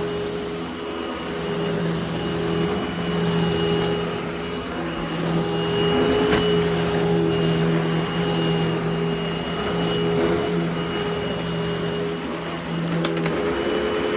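Upright vacuum cleaner running steadily, its motor giving a constant hum with a high whine, as it sucks up shredded paper. A couple of sharp clicks come near the end, and the motor's pitch starts to drop just at the close.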